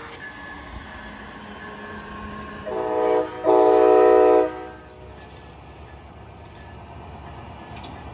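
Amtrak Siemens ALC-42 Charger locomotive's air horn, a short blast followed by a longer, louder one of about a second, over the low rumble of the passenger train rolling by.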